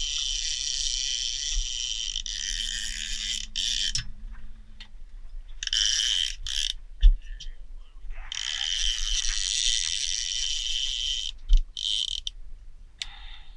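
Trolling reel's drag or clicker ratcheting in long high-pitched runs as line is pulled off by a hooked fish, stopping and starting several times. Two sharp knocks stand out, one around the middle and one near the end.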